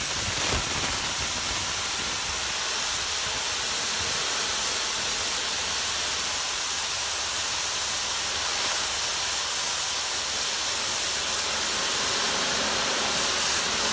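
High-pressure washer wand spraying a jet of water onto a metal mesh stove hood grease filter to blast the grease out of it: a steady, even hiss.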